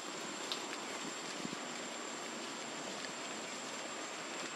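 Steady outdoor ambience: an even hiss with a thin, high, steady whine above it, and a couple of faint ticks.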